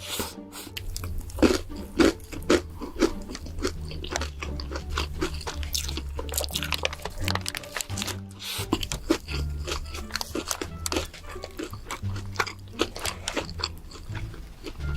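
Close-miked crunchy biting and chewing, a run of irregular crisp crunches loudest in the first few seconds, over background music with a steady bass line.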